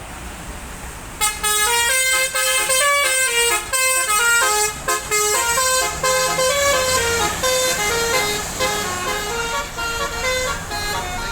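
Bus telolet horn of the Basuri multi-tone type playing a quick melody of stepping notes, starting about a second in and running on, over a low rumble.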